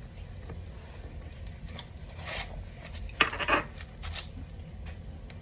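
Eating utensil scraping and clicking against a paper bowl or plate during a meal, in a few short scrapes, the loudest cluster about three seconds in, over a low steady hum.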